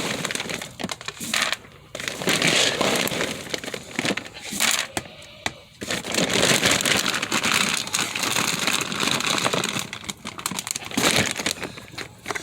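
Dry rustling and crunching in irregular bursts, from goat feed pellets and their bag being handled as the feed is readied.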